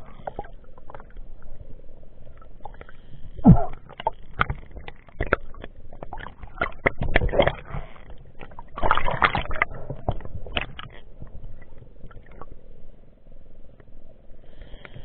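Muffled underwater sound picked up through a camera's waterproof housing: irregular clicks, knocks and rumbles of water moving and handling against the housing. The loudest knocks come about three and a half seconds in and again around seven and nine seconds.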